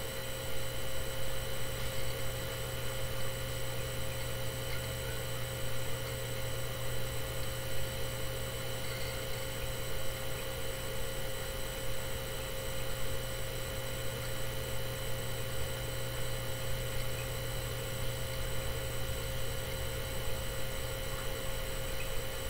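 Steady low electrical hum with a constant hiss and no distinct events: room tone.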